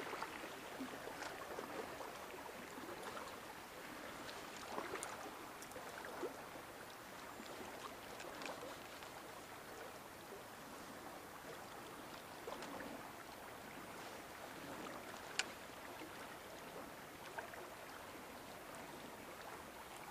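Shallow river running over stones in a steady rush of water, with a few faint clicks scattered through it, the sharpest about fifteen seconds in.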